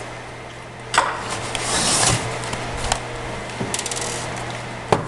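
Small screwdriver backing a screw out of a plastic laptop base: light scraping and rubbing as the bit turns, with a few small clicks and a sharper click near the end.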